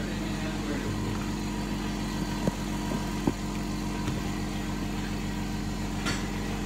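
A machine running steadily with an even low hum. Two light taps come about two and a half and three and a quarter seconds in.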